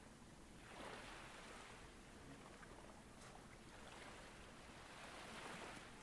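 Faint ocean waves washing in, swelling about a second in and again near the end.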